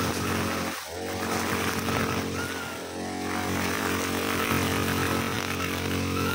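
Petrol brushcutter engine running at cutting speed while trimming thin, soft roadside grass. The engine eases off briefly and picks back up about a second in and again near three seconds.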